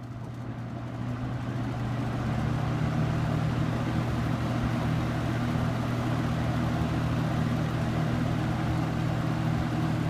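Superlectric box fan running on high: it comes up to speed over the first couple of seconds, then holds a steady rush of air over an even motor hum.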